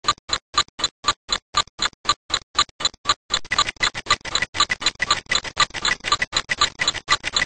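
A clock ticking steadily, about four ticks a second. A fuller layer of sound joins between the ticks about halfway through.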